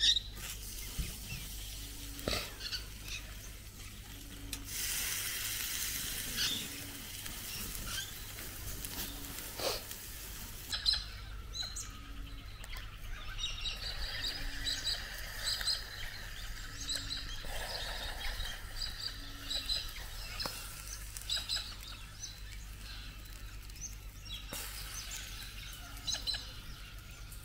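Birds chirping and calling over steady outdoor background noise, with many short, high calls, thickest in the second half. A spell of steady hiss runs from about five to eleven seconds in.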